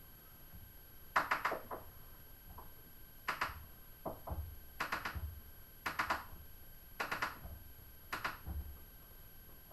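Hand tools working at a stuck screw: about six short, sharp knocks about a second apart.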